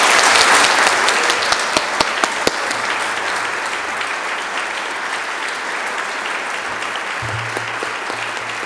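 Audience applauding, loudest at the start and then settling to a steady level.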